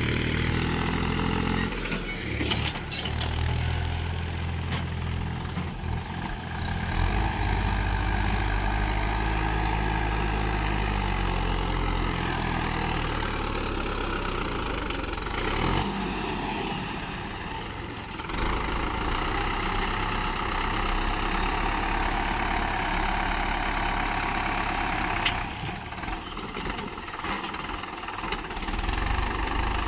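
Swaraj 843 XM tractor's three-cylinder diesel engine running hard under load, its note dipping and picking up again several times as the tractor strains to haul a loaded sand trailer with its rear wheels dug into loose sand.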